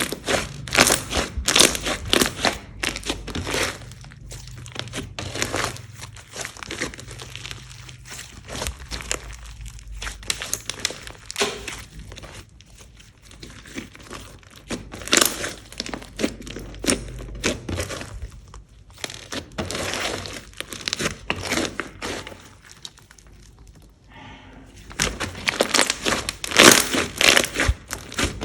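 Glossy slime being squished and kneaded by hand: irregular runs of sticky crackling and popping, easing off briefly a couple of times.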